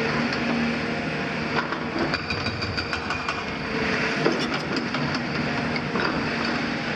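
Demolition excavator's diesel engine running steadily under working load, with a run of sharp cracks and clatters of breaking masonry and falling debris from about one and a half to four and a half seconds in.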